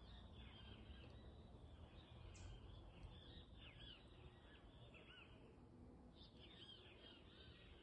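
Faint chirping of small birds: quick runs of short arched calls in two bouts with a pause a little past the middle, over a low steady outdoor rumble.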